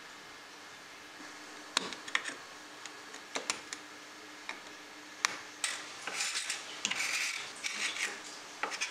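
A thin metal blade scraping grime off the old wooden floor of the box, with scattered sharp ticks of metal against wood. A denser, scratchy run of scraping comes about six seconds in.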